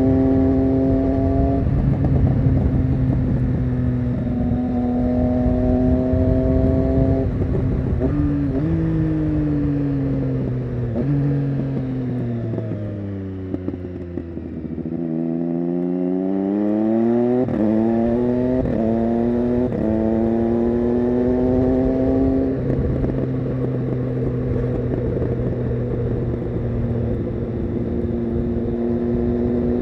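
Triumph Street Triple 675 Rx's three-cylinder engine through an SC-Project Conic exhaust. It runs steadily, then slows through a hairpin with stepped downshifts to a low point about halfway through. It then pulls away with three quick upshifts, the pitch dipping briefly at each, and settles back to a steady cruise.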